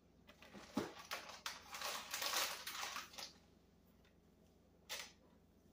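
Plastic food packaging handled on a kitchen counter: about three seconds of crinkling and clicking, then one short rustle near the end.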